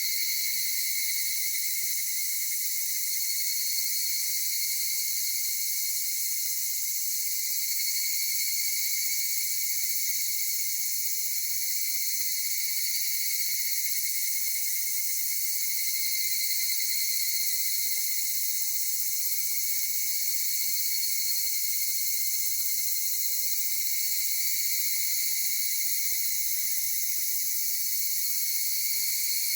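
Dense chorus of insects shrilling steadily at several high pitches, without let-up.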